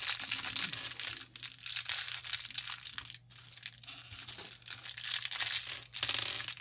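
Thin clear plastic bag crinkling steadily as hands tear it open and handle it.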